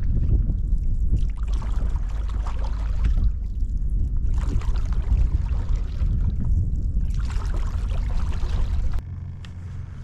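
Wind buffeting the microphone over rushing water as a 16-foot skiff runs along the creek, gusting up and down. About nine seconds in it drops off sharply to a quieter, steady rumble.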